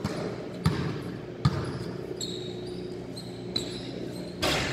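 Basketballs bouncing on the court floor during a warm-up: three sharp thuds in the first second and a half, then a lighter one and a short scuffing burst near the end, over a steady low hum of the hall.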